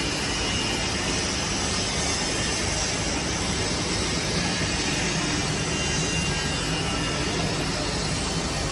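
Continuous carbonization furnace plant running during a test run: a steady, unbroken rushing noise that does not change.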